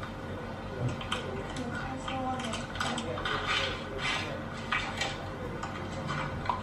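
Small kitchen knife peeling the dry, papery skin off a shallot: a run of short, crisp scrapes and clicks.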